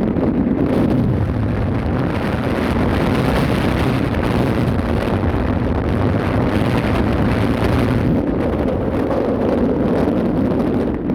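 Wind buffeting the microphone aboard a ship under way, over a steady low rumble.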